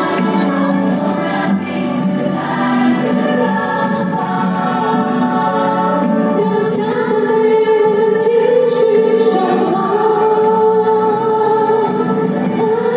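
A choir singing a song together with a female soloist, with held, slowly moving notes.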